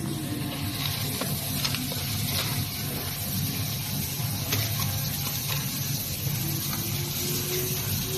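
A few light clicks and taps of metal parts being handled as a blower is set onto its steel mounting bracket, over a steady hum and hiss.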